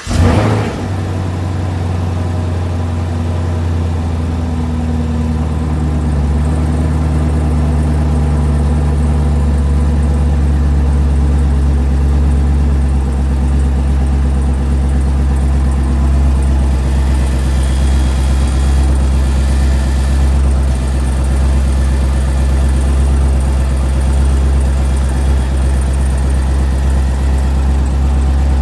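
2018 Camaro SS 6.2-litre V8 catching on a cold start through its NPP exhaust, with a brief flare, then a fast cold idle that steps down over the first several seconds and holds steady. On this car's cold starts the owner says the exhaust rattles for the first few seconds.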